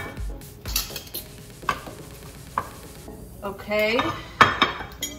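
Kitchen utensils and a plate clinking and knocking on a countertop: a handful of separate sharp clacks, roughly a second apart, with the loudest one near the end.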